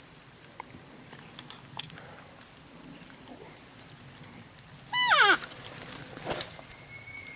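Elk cow call: one short, nasal mew that falls steeply in pitch, followed by a sharp click.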